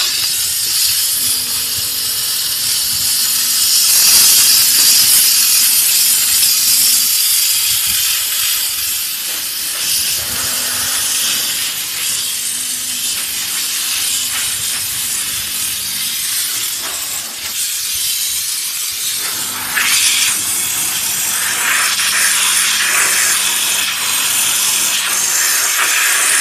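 Steam gun of a 220V 6 kW commercial steam car wash machine spraying steam onto a car tyre and wheel: a loud, steady hiss that swells and eases as it works, with a faint low hum coming and going.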